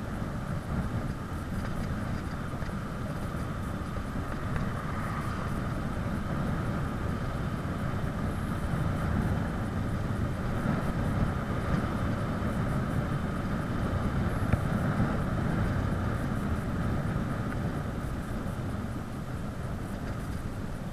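Wind rushing over the camera microphone with bicycle tyre and road noise during a fast downhill ride: a steady, even rush, heaviest in the low end.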